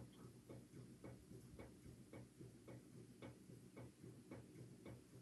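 Faint regular ticking, about two ticks a second, over a low steady hum in a near-silent room.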